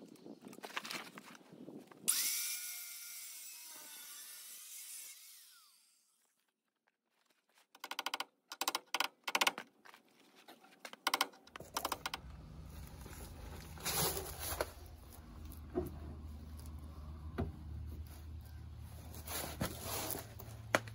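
Power tools working the sheet metal of a van rocker panel, heard in edited snatches. First comes a few seconds of loud high hissing with a gliding whine, then a brief dead silence. After that there is a run of short rapid bursts, and finally a steady low hum with scattered clicks and knocks.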